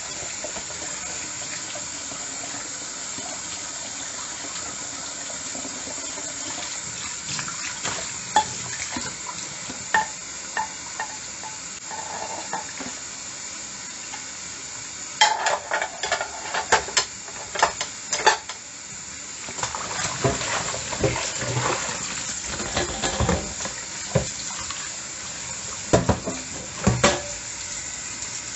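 Dishes being washed at a sink: water running steadily while plates and cutlery knock and clatter, with bursts of sharper clinks about halfway through and again near the end.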